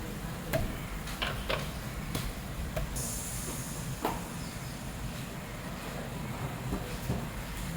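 Scattered light clicks and knocks over a low steady rumble, with a short high hiss lasting about a second, roughly three seconds in.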